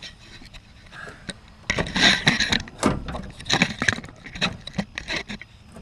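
Irregular knocks, clanks and rattles of a radiator and its hardware being handled and worked into a car's engine bay, getting busier about two seconds in.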